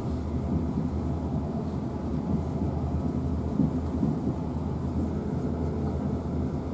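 Steady low rumble of a South Western Railway Class 450 Desiro electric multiple unit running at speed, heard from inside the passenger carriage.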